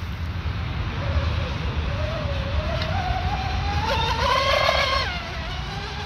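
Twin brushless outrunner motors (Rocket 3670, 1850 kV) of a high-speed RC mono boat whining as it runs flat out. The pitch climbs steadily for several seconds, peaks about four to five seconds in, then drops away sharply. A low rumble runs underneath.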